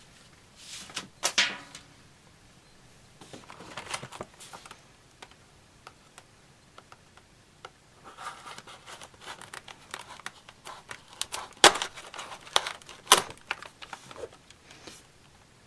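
A cardboard retail box being opened and its clear plastic tray slid out: irregular crinkling and rustling of plastic and cardboard in short bursts, with a few sharp clicks, loudest in the later part.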